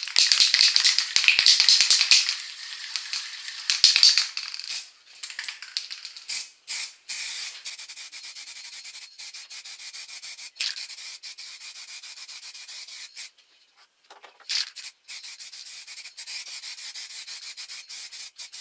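Aerosol spray-paint can hissing as a coat of paint is sprayed on, in several passes. The hiss is loudest over the first few seconds and breaks off briefly twice between passes.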